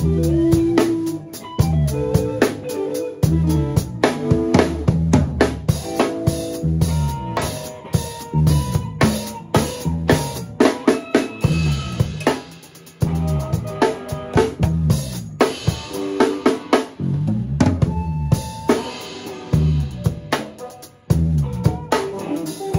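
Live funk band playing an improvised groove: a drum kit with kick and snare drives the beat under an electric bass line, with pitched lead lines on top.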